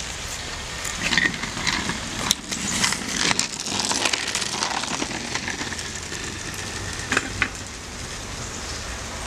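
A child's kick scooter rolling over a gravel path, its wheels crunching, loudest in the middle as it passes close, with a few sharp clicks.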